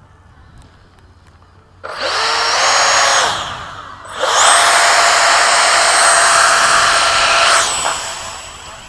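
Electric ducted-fan model jet spooling up with a rising whine and rush of air, easing off briefly, then running at high throttle again for a few seconds before throttling back near the end.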